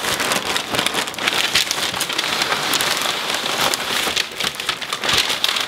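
Tissue paper and a plastic bag crinkling and rustling as they are handled and pulled out of a shipping box: a steady crackle of many small crinkles.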